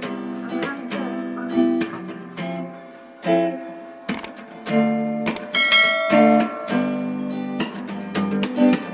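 Background music on acoustic guitar: a run of plucked and strummed notes that ring and fade.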